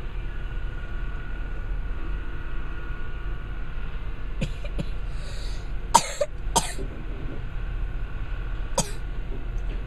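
Steady low drone of a rail tie-handling machine's engine running, with a person coughing twice, about half a second apart, a little past the middle, and a few lighter coughs or throat-clearings before and after.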